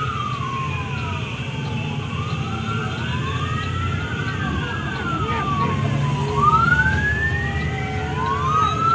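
Several police escort sirens wailing, each rising and falling slowly and overlapping out of step with the others, over a low rumble of motorcycle and vehicle engines.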